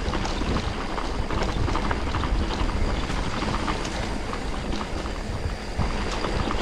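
Mountain bike being ridden along a rough trail: a steady rumble of wind on the microphone, with frequent clicks and rattles from the tyres and bike over the ground.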